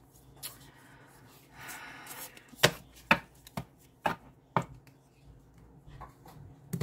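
Oracle cards handled over a wooden table: a short rustle of cards sliding, then five sharp taps about half a second apart as the cards are knocked and set down on the tabletop, with a few softer taps near the end.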